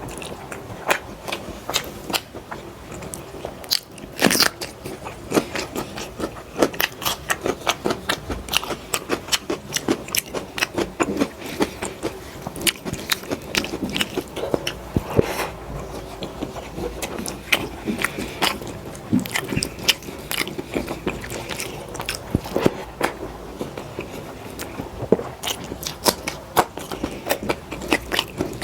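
Close-miked eating sounds: a person chewing large mouthfuls of rice and dal, with wet smacking and frequent crunchy bites, several clicks a second.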